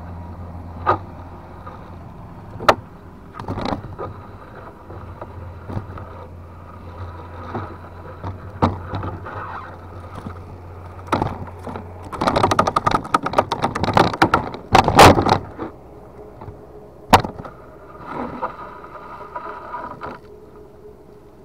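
A nylon gill net being hauled by hand into a wooden boat: wet mesh rustling and dripping, with scattered knocks against the hull. About twelve seconds in comes a few seconds of loud, rapid splashing and flapping as a netted fish thrashes.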